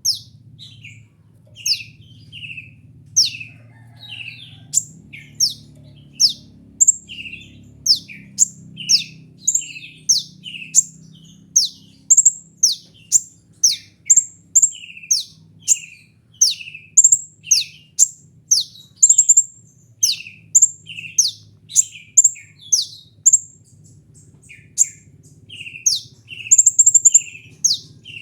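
Kolibri ninja sunbird calling over and over: each call a sharp, high, steeply falling note followed by a shorter lower note, about two calls a second, with a faint low hum beneath.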